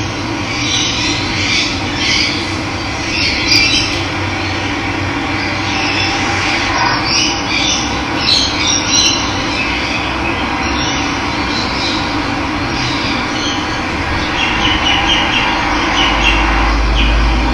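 Running water flowing steadily while several birds chirp and call over it, with a low rumble near the end.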